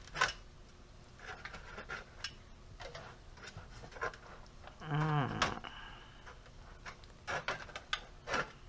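Knife and fork scraping and clicking in scattered light taps while cutting into a baked salmon fillet on a foil-lined baking sheet. About five seconds in, a brief murmur from a person, falling in pitch.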